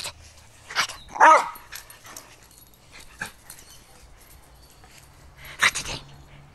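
Jack Russell terrier giving one short, loud bark about a second in, with a few brief noisy huffs or rustles before it and another near the end.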